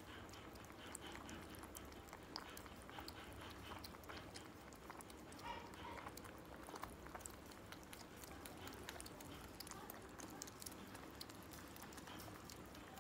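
A grey cat and a tabby kitten lapping milk from a steel plate: a faint, irregular stream of quick wet clicks from their tongues.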